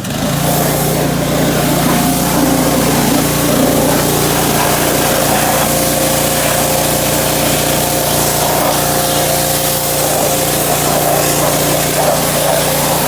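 Pressure washer running and spraying: a steady motor-and-pump drone under the hiss of the water jet. It starts abruptly at the beginning.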